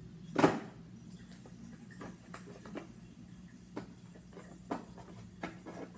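Board game pieces being handled and set down on a table: one sharp tap about half a second in, then a scattering of lighter clicks and ticks.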